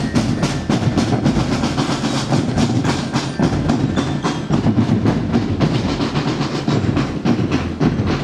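Band music with a fast, even drum beat that runs on without a break.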